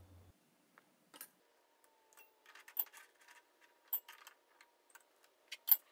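Light metallic clicks and taps from small metal parts being handled and set in place on a drill press's cast table, a scattered handful of sharp clicks with the loudest near the end.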